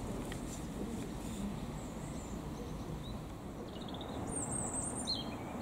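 A small bird giving a run of quick, high chirps in the last two seconds or so, over a steady low background rumble.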